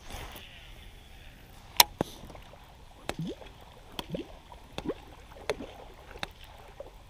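A baitcasting reel being cranked on a crankbait retrieve, with about half a dozen sharp clicks or knocks and several short creaks from about three seconds in.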